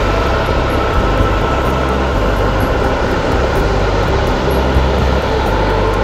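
Boeing 737-800's CFM56 jet engines running steadily at low power as the airliner taxis, a continuous rumbling whine.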